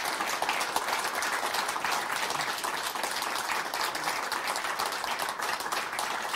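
Studio audience applauding steadily: a dense patter of many hands clapping.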